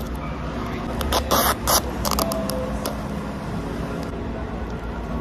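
A few short crackling, scraping noises, a little over a second in, as a plastic drink cup and its packaging are handled, over a steady low hum.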